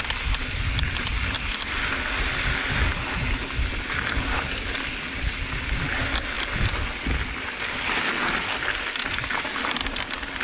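Mountain bike descending a dry dirt singletrack: a steady low rumble and crunch of tyres over loose dirt, with small rattles of the bike and wind noise on the camera's microphone.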